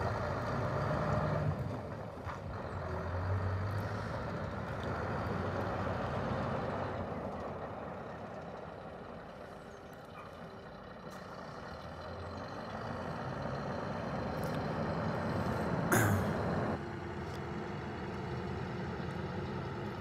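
Scania R560 hooklift truck's V8 diesel engine running as the truck pulls away and manoeuvres, its note rising and falling with the throttle. About 16 seconds in there is a short, sharp hiss of air brakes, after which the engine runs more steadily.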